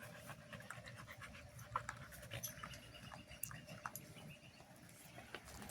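Husky puppies and their mother panting faintly, with scattered small clicks and scuffs from the dogs moving about.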